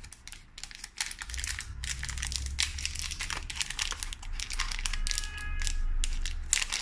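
Plastic packaging crinkling and rustling, with a dense run of small clicks and crackles as items are handled.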